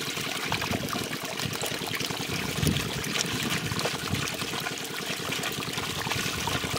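Water running through a cut in a mud bank and spilling into a plastic crate of small fish: a steady trickle and pour with many small splashes.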